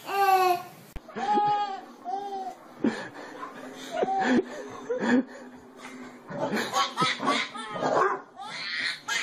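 A baby laughing hard, in several bouts of high belly laughter.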